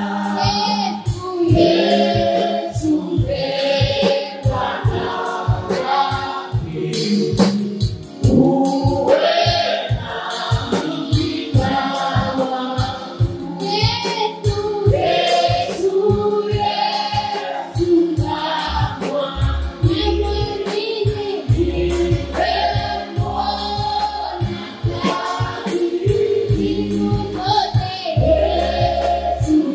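Live gospel worship music: several voices singing together, a woman's voice leading, over a drum kit keeping a steady beat. Deep bass notes join in past the middle.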